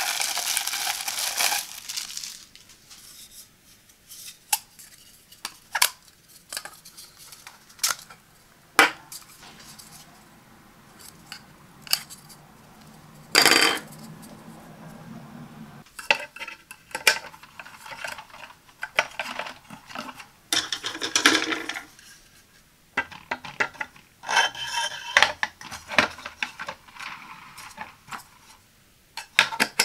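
Hard plastic parts of a coffee pod carousel being unwrapped and handled. Clear plastic wrapping crinkles at first, then come many sharp clicks and knocks of the plastic pieces being turned over and set down on a table, with a few more stretches of rustling later.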